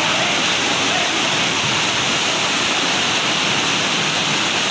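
Torrent of muddy rainwater floodwater rushing and churning past: a steady, unbroken rush of water.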